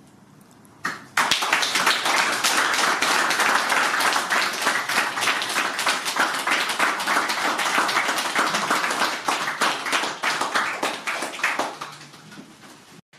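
Audience applauding: the clapping starts suddenly about a second in, holds steady and dense, then thins out and dies away near the end.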